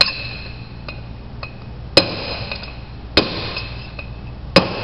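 Hammer striking a steel punch to drive a tapered roller bearing's outer race into a brake rotor hub, working around its edge. There are four sharp metallic strikes a second or more apart, each with a brief ringing after it, and fainter taps between them, as the race is worked down into its seat.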